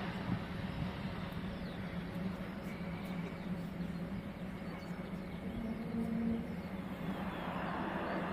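Road traffic noise with a steady low hum, swelling near the end as a vehicle comes by.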